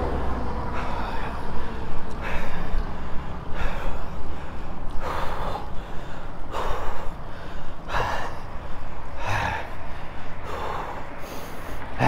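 A cyclist's heavy breathing while riding hard, one loud breath about every second and a half, over steady low wind and road rumble.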